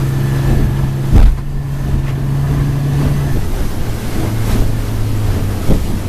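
A 50 hp outboard motor running at speed, a steady drone that drops slightly in pitch about three seconds in, over the rush of water and wind on the microphone. A loud thump comes about a second in.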